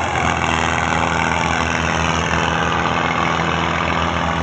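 Belarus 510 tractor's diesel engine running steadily under load as it pulls a fully loaded sugarcane trolley, with an even, unchanging engine beat.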